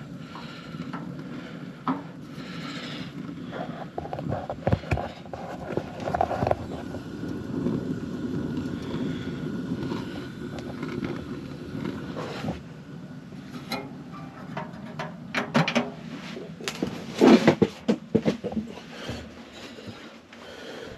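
Knocking, rustling and scraping of gear and clothing being handled inside a fabric ice-fishing tent, over a steady low rumble. A run of sharp clatters comes about three quarters of the way through.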